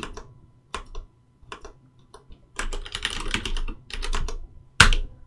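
Typing on a computer keyboard: scattered keystrokes, then a quick run of strokes in the middle, with one louder keystroke near the end.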